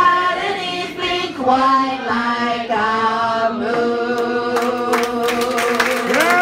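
Women and men singing the end of a bawdy folk song together in harmony, unaccompanied, drawing out long held notes. Audience clapping starts about two-thirds of the way in.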